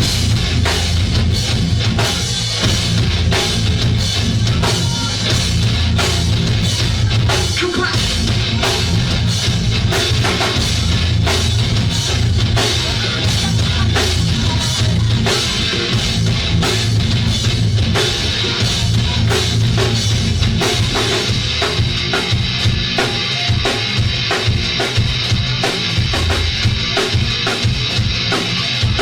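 Live band playing a song, with the drum kit loudest: kick drum and snare beating steadily over a heavy bass.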